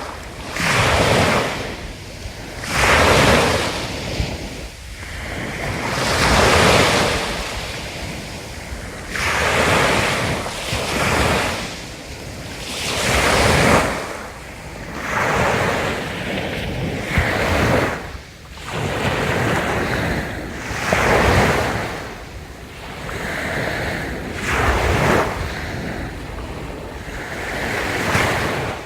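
Sea waves breaking and washing up a beach, the surf swelling and falling back every few seconds.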